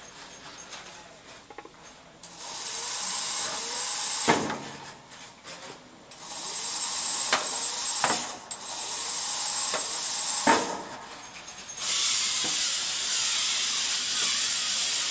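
FTC competition robot running its motors in bursts of a few seconds at a time, a hissy mechanical whirr that starts and stops, with several sharp knocks, the loudest about four seconds in and about ten and a half seconds in.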